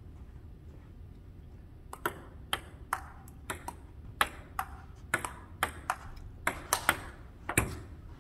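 Table tennis rally: the ball clicks sharply off the paddles and the tabletop, in a quick, uneven run of ticks that starts about two seconds in and stops just before the end. A low room hum sits underneath.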